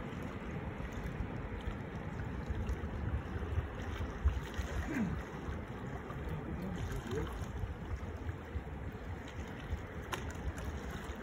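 Steady outdoor wind and water noise, with wind gusting on the microphone.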